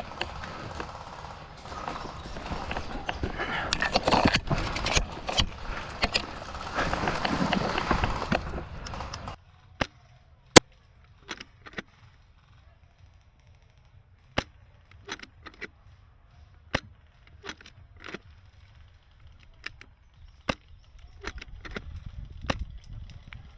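A busy rush of noise with voices for about the first nine seconds, then it cuts to quiet broken by sharp single airsoft shots, some in quick pairs, at uneven intervals.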